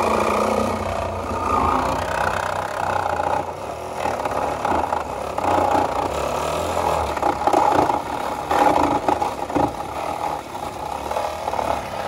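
Power cutting tool working through the sheet-metal body of a Honda Civic, a loud uneven grinding and chattering that swells and dips as it bites.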